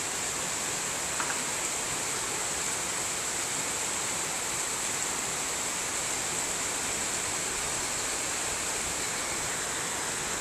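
Heavy rain pouring down steadily, an even hiss of downpour drumming on corrugated tin roofs.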